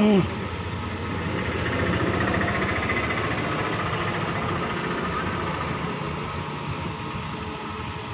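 A steady mechanical running hum, engine-like, swelling slightly about two to four seconds in. It opens with a short, loud falling-pitched sound.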